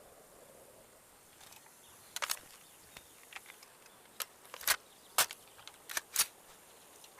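Armalite AR-10T rifle's metal action giving a series of sharp mechanical clicks and clacks, about half a dozen spread over a few seconds, the loudest a little past the middle, as in handling or reloading the rifle.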